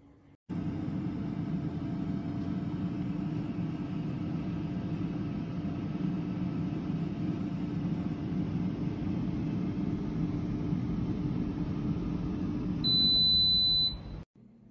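Philips HD9255 air fryer running with a steady fan whir and hum. Near the end comes a single loud, high beep lasting about a second, then the sound cuts off.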